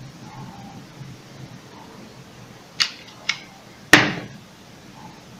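Automatic self-adjusting wire stripper working on a thin power-cord wire: two light clicks, then a loud sharp snap about four seconds in as the jaws release.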